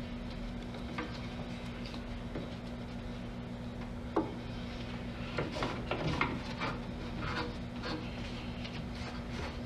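Headliner fabric being handled and pressed into place: a sharp click about four seconds in, then a few seconds of rubbing and rustling, over a steady low hum.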